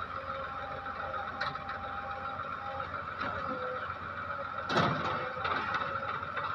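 Diesel engines of a JCB 3DX backhoe loader and an Eicher 333 tractor running steadily as the loader pushes the tractor's water tanker out of mud, with a brief louder noise about five seconds in.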